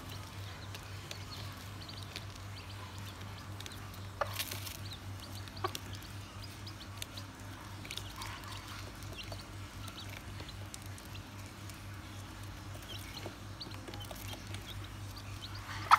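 Chicks peeping softly now and then, with a few sharp taps of beaks pecking feed off cardboard, over a steady low hum.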